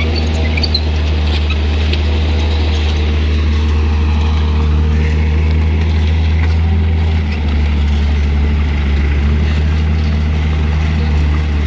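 Truck engine running steadily with a constant low drone.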